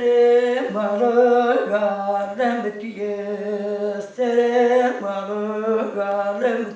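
An elderly woman singing a mourning lament (ağıt) unaccompanied, in long held, wavering notes that step downward in pitch phrase by phrase. Her voice breaks off briefly about four seconds in, then a new phrase begins.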